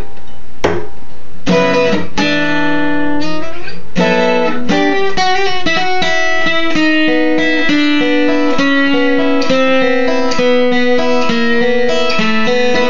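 Acoustic guitar played solo, an instrumental break with no singing. It opens with a few strummed chords, then from about four seconds in it picks a melody of single notes that step up and down.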